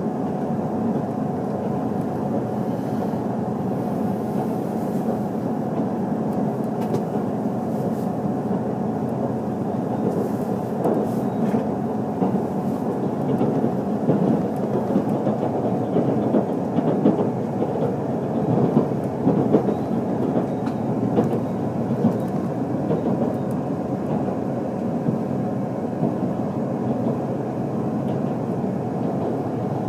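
Steady running noise of a JR HC85-series hybrid diesel train, heard from inside the passenger car: a continuous rumble of wheels on rail and the drivetrain.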